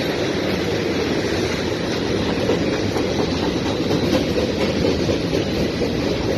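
Canadian Pacific freight train's boxcars rolling past, a steady rumble of steel wheels on the rails that holds even throughout.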